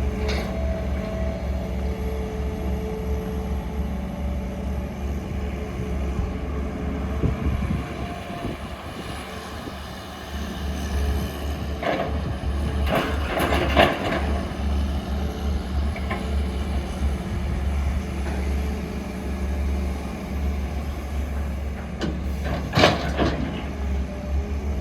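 Heavy diesel engine of construction equipment running steadily with a low, throbbing rumble, with a few short, louder noisy bursts about halfway through and again near the end.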